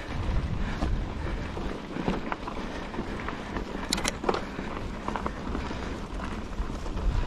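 Mountain bike rolling over a dirt and rock trail: tyres crunching, with scattered small clicks and rattles and one sharp click about four seconds in.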